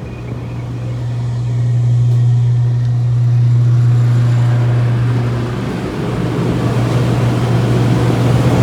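A motor vehicle's engine running with a steady low hum. The hum swells, then eases off about six seconds in as a rougher rushing noise grows.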